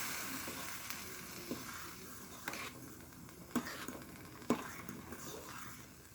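A fork stirring pasta in a pot of boiling water, clinking against the pot about five times, over a hiss from the boiling water that fades away.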